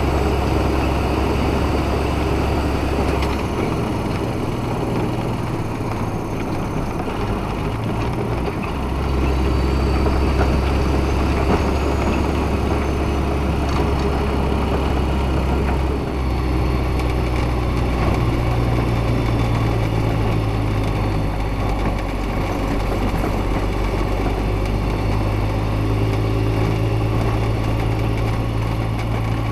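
Western Star snowplow truck's diesel engine running steadily as the truck drives, heard from the cab, with a rough scraping noise from the plow blade on the snowy road. The low engine drone shifts in pitch a few times.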